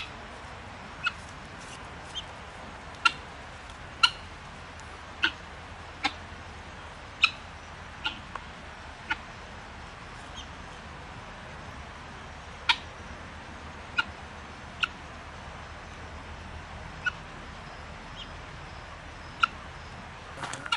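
Helmeted guineafowl giving short, sharp single calls, about one a second at first, then sparser after a pause of a few seconds.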